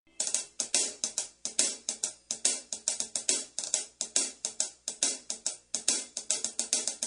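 Background music: a fast, even beat of drum and cymbal hits, about four to five a second, starting a moment in.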